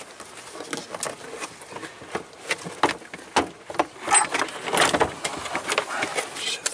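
Plastic interior trim panel of a Scion tC being pulled and pried loose by hand: a run of sharp clicks, knocks and plastic rattles, busiest and loudest about four to five and a half seconds in.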